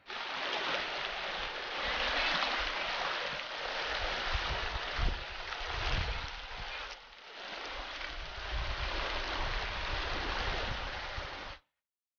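Shallow, fast-flowing river rushing over stones around people wading through it, a steady roar of water. It dips briefly about seven seconds in and cuts off abruptly near the end.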